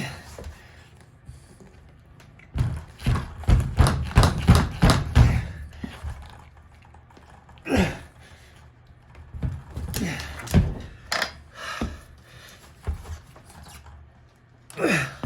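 Tie-clip lavalier microphone being thrashed about, picking up knocks, thuds and rubbing as it is handled, along with heavy breathing into it. A dense run of knocks comes about two and a half seconds in and lasts about three seconds, followed by scattered single knocks, the last one loud, near the end.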